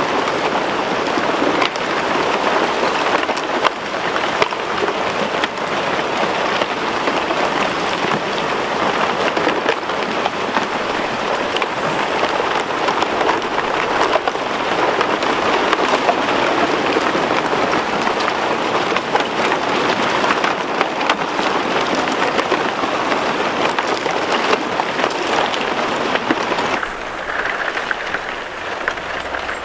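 Plates of thin, newly formed lake ice breaking and stacking against the shore as wind and small waves push the floe in: a loud, continuous crackling and clinking made of countless small cracks and tinkles. It drops a little in level near the end.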